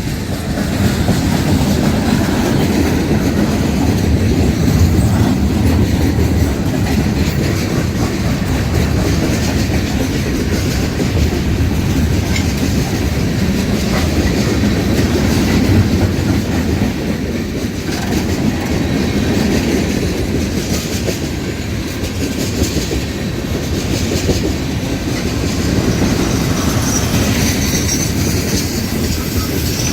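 Cars of a long mixed freight train rolling steadily past at close range, the wheels clacking over the rail joints.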